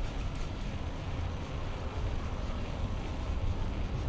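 Steady low rumble of outdoor street ambience, with no single sound standing out.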